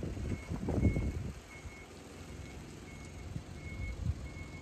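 Wind buffeting the microphone in low, uneven gusts, strongest in the first second or so and then easing. A faint thin high note repeats about every three-quarters of a second throughout.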